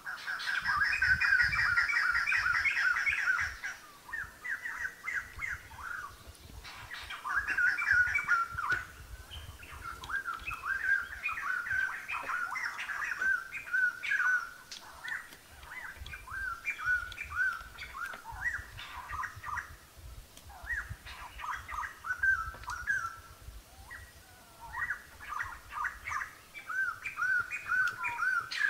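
Birds chirping and calling continuously, with a dense, fast run of chirps in the first few seconds and many short repeated notes after it.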